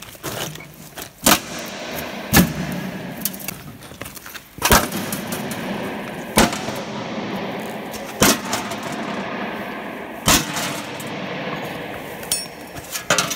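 About six sharp metal clanks, a second or two apart, over a steady noisy background, as a steel sheet is pried and bent back off a metal box cast inside a concrete block.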